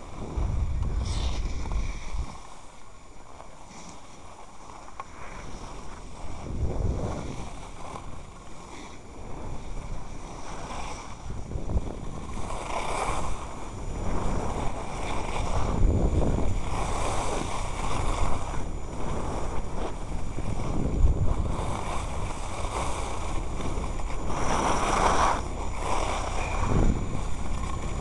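Wind buffeting the microphone in uneven gusts, with the hiss and scrape of a board or skis sliding over packed snow as the camera-holder rides down a ski slope. It gets louder about halfway through.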